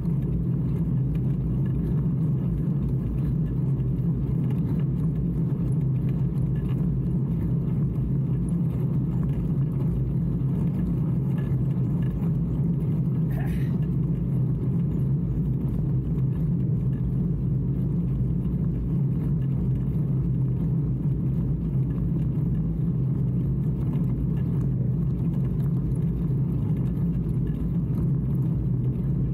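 Steady low rumble of a bicycle ride on an asphalt lane: tyre noise and wind on the microphone, with one short faint higher sound about halfway through.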